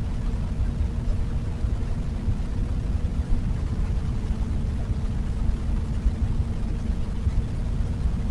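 Wind buffeting the microphone of a moving Benelli BN600i motorcycle, louder than the bike's exhaust. Beneath it, the inline-four engine holds a steady tone at an even speed.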